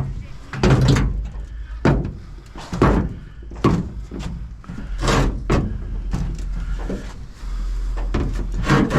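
Scrap pieces being handled and set down: a series of separate knocks and thunks, about one a second. A low steady rumble joins in near the end.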